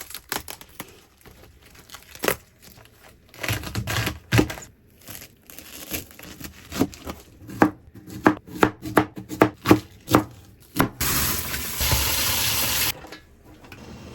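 Knife chopping vegetables on a cutting board: a run of uneven sharp knocks. Near the end comes a steady hiss that lasts about two seconds and then stops.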